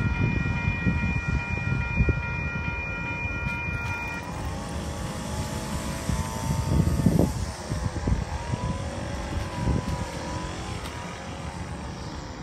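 WCH Type-2 electronic railway crossing bell ringing in a steady multi-tone pattern, cutting off about four seconds in as the gate rises. Road traffic rumbles throughout, with a vehicle passing louder about seven seconds in.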